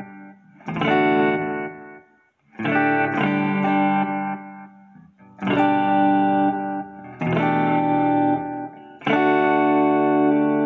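Electric guitar on a modded ES-335-style Firefly FF-338 with its bridge humbucker: about five chords strummed, each left to ring and fade before the next, played through a VSN Echo Delay pedal.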